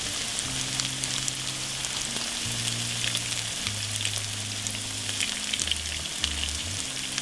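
Breaded bass fillets frying in hot peanut oil in a pan: a steady sizzle dotted with small crackling pops.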